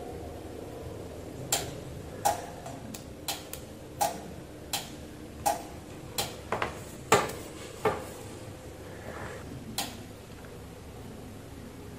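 About a dozen sharp, irregularly spaced clicks and taps as a dismantled plastic potentiometer is handled and touched with multimeter probes, over a low steady hum.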